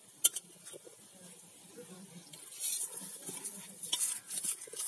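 Hand mixing dry wheat flour and sugar in a stainless steel bowl: a gritty, irregular rustle of sugar grains and flour being rubbed and stirred, louder from about halfway in. A sharp click sounds just after the start.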